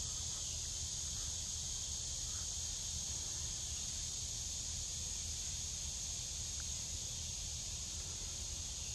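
Insects calling in a steady, high-pitched chorus that does not change, over a low, steady rumble.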